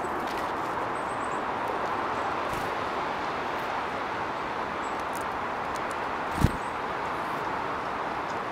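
Steady outdoor background hiss with a few faint, very short high chirps, and one dull thump against the microphone about six and a half seconds in.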